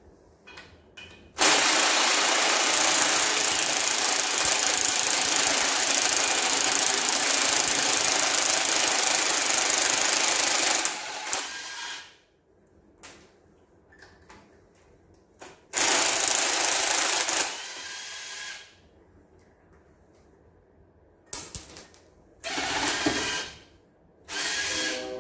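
Hand-held power wrench running on bolts of a 5.9 Magnum V8 engine: one long run of about ten seconds, then several short bursts.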